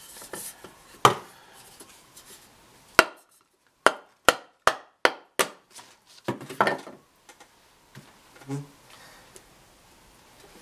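A hatchet used as a mallet, knocking on a wooden block held against a clay sculpture: two single knocks, then a quick run of about seven, two or three a second.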